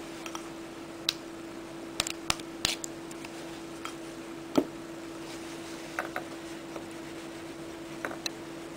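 Kitchen utensils clicking and tapping now and then as a creamy sauce is spooned onto a mussel half-shell on a wooden board, with the loudest knock about halfway through. A steady low hum runs underneath.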